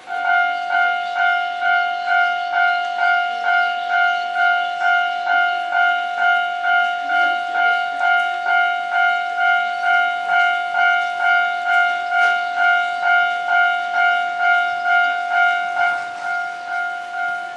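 Railway level crossing's electronic warning bell ringing, an evenly repeated ding about twice a second, switched on suddenly to warn of an approaching train. It gets a little quieter near the end.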